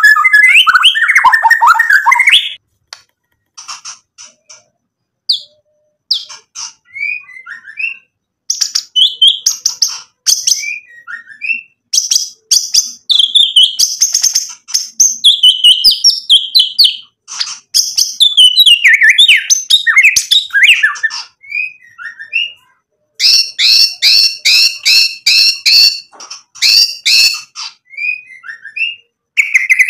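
White-rumped shama (murai batu) singing in loud, varied phrases of whistles, harsh chatter and trills, broken by short pauses, with a run of quick repeated notes near the end.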